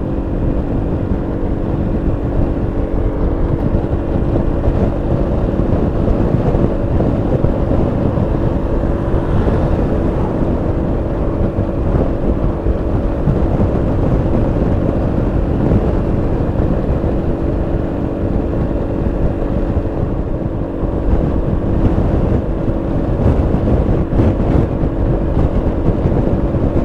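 Yamaha XMAX 300 scooter's single-cylinder engine running at a steady cruising speed, with wind noise on the microphone.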